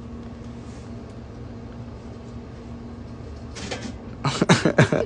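Vending machine humming steadily, then about four seconds in a quick run of loud knocks and clicks from its mechanism.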